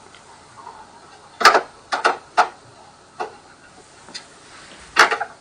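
Several sharp, irregular clicks and taps from hand tools and parts being handled while body-kit trim is screwed onto a car.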